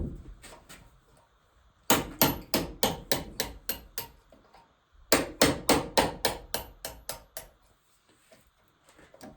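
Hammer striking metal on an NV4500 manual transmission, knocking out the shift fork pins: two quick runs of about ten sharp, ringing blows each, about four or five a second, with a short pause between.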